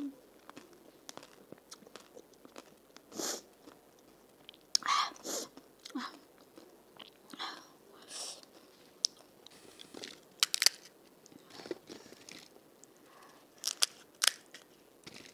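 Close-up chewing and crunching of a mouthful of panipuri, irregular wet crackles and bites. Near the end, a crisp puri shell cracks sharply as fingers break it open.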